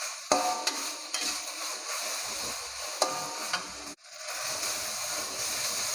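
Ground chili paste sizzling in hot oil in a wok, stirred with a metal spatula that clicks and scrapes against the pan a few times. The sizzle cuts out for a moment about four seconds in.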